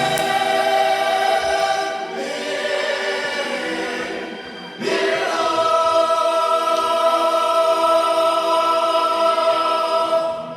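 Choir singing long held notes; the voices fall away briefly and a new sustained chord comes in about five seconds in.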